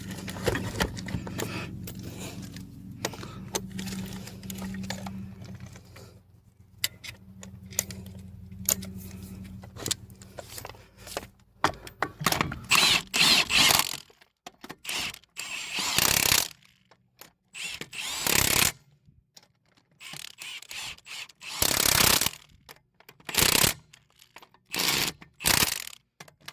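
Battery-powered impact wrench working the lug nuts of a car wheel in short bursts of hammering, about eight bursts with pauses between them in the second half. The first half holds a steady low hum with scattered metallic clicks.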